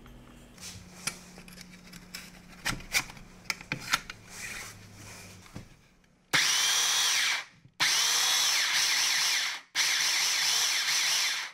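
Freshly restored Bosch PBS 75 belt sander switched on and run three times in short bursts, each start with a rising whine as the motor and belt spin up. Before that, light clicks and knocks of the tool being handled on the bench.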